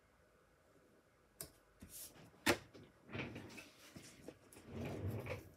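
Paper and card being handled on a craft mat, starting about a second and a half in: a few sharp taps and clicks, the loudest about two and a half seconds in, then rubbing and rustling as fingers press an adhesive-backed die-cut paper border strip down along a card frame.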